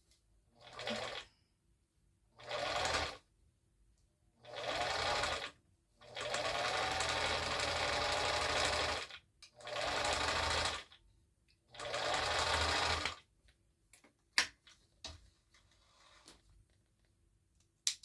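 Vintage Bernina Record 730 sewing machine stitching in six short runs, the longest about three seconds, its motor pitch climbing as each run speeds up. A few sharp clicks follow near the end.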